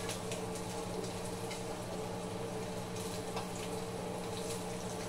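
Small banana pancakes sizzling softly in a buttered frying pan over a gas burner, with scattered faint crackles and a few light spatula ticks against the pan, over a steady low hum.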